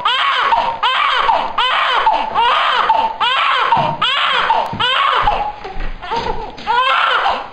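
Newborn baby crying in repeated wails that rise and fall in pitch, a little more than one a second.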